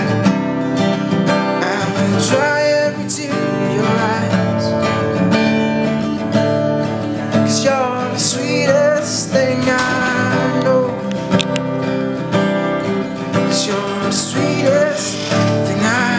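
Acoustic guitar strummed steadily, with a man's voice singing wavering, wordless runs over it.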